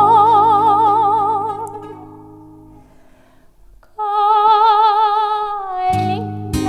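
A woman singing long held notes with wide vibrato in a Russian folk song, over sustained plucked bouzouki and guitar chords. The accompaniment fades out about two seconds in. A second held note begins about four seconds in, and sharp strummed chords start near the end.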